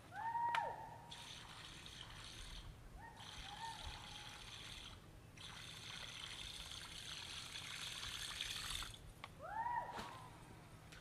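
A wild animal's loud whooping call that rises, holds a note and falls, three times: loudest right at the start, fainter about three seconds in, and again near the end. Between the calls a high, hissing buzz stops and starts.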